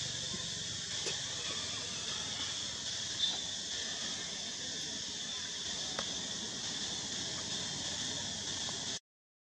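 Steady, high-pitched chorus of insects with a few faint clicks, cutting off suddenly near the end.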